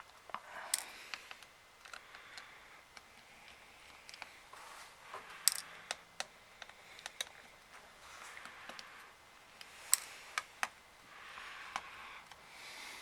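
Small hard plastic parts of a Nintendo 3DS XL handled during disassembly: irregular sharp clicks and taps, with scraping and rubbing between them. The two loudest clicks come about five and ten seconds in.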